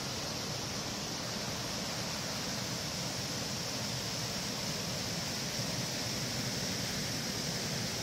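Steady rush of a small waterfall: water spilling over a stone ledge and tumbling through a rocky stream below.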